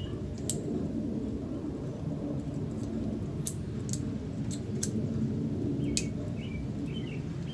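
Scattered sharp clicks and taps from handling a small revolver, over a steady low rumble, with a few bird chirps near the end.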